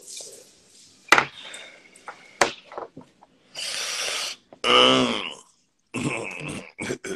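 A man coughs and clears his throat after drawing on a joint. Two sharp clicks come first, then a long breathy exhale, then a loud, hoarse, voiced cough about five seconds in, followed by short mutters.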